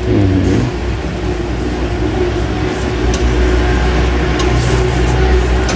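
An engine running: a low steady rumble with a hum that grows louder about three seconds in, with a few faint ticks over it.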